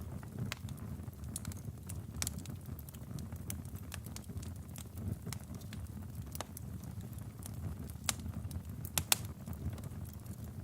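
Logs burning in a fireplace: a steady low rumble of flame with scattered sharp crackles and pops, the loudest pops coming near the end.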